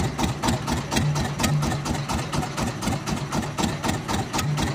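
Small fishing boat's engine idling with a rapid, even chugging.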